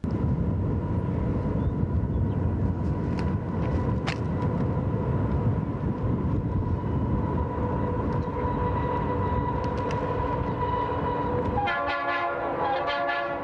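Union Pacific diesel locomotives hauling a freight train past, engines running with a steady low rumble and a steady high tone. About twelve seconds in the locomotive horn sounds briefly, then the rumble carries on.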